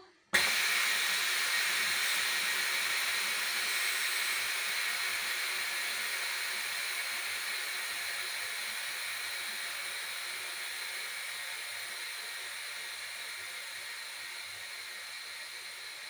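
Steam hissing out of a Tupperware microwave pressure cooker's lid as its safety lock is lifted to vent the pressure. The hiss starts suddenly and then fades slowly as the pressure inside comes down.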